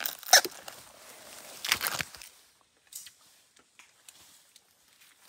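Rustling and crunching, with one sharp crunch near the start and a cluster of them about two seconds in, then only a few faint scattered clicks.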